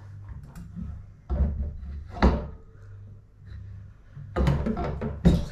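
A heavy hub-motor rear wheel's axle is knocked and clunked against the metal swingarm dropouts as it is worked to fit: a few dull thuds, the sharpest about two seconds in, and more near the end. The axle will not go into the dropouts.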